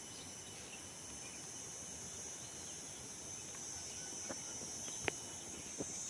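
Steady high-pitched drone of insects, with a few sharp clicks near the end, one louder than the rest.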